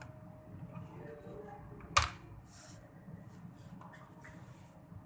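Plastic bottom case of an Asus TUF FX506LI laptop being pried off with a prying tool. There is one sharp snap about two seconds in, as a retaining clip lets go, and fainter scraping and small clicks around it.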